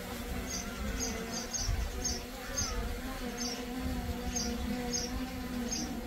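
DJI Mini 3 Pro quadcopter hovering, its propellers giving a steady buzzing hum, with wind rumbling on the microphone. Short high chirps come at irregular intervals, about ten of them.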